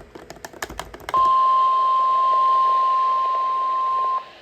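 A quick run of clicks, then the NOAA Weather Radio warning alarm tone: a single steady high beep held for about three seconds before it cuts off. It is the attention signal that comes before an emergency message, here a special marine warning.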